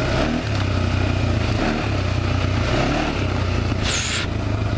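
Honda 400EX quad's single-cylinder four-stroke engine running as it is ridden on a trail. Its note drops away briefly a few times as the throttle eases, and there is a short hiss about four seconds in.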